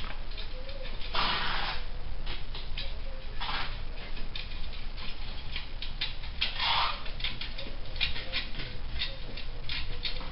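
A hand tool working at the muffler joint of a Harley-Davidson Softail's exhaust: irregular clicks with three short scraping rasps, about one, three and a half and seven seconds in.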